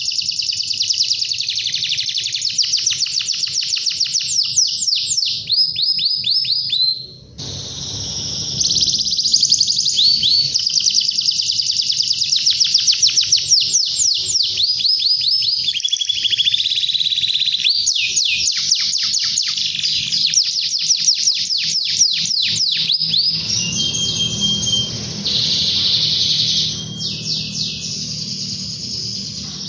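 Domestic canary in full song: long runs of rapid high trills, each a quick string of repeated sweeping notes. The song breaks off briefly about seven seconds in, then resumes.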